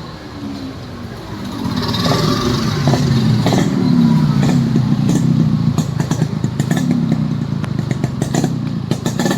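Yamaha RX 135 single-cylinder two-stroke motorcycle engine running, its pitch rising and falling several times with the throttle, with scattered sharp clicks over it.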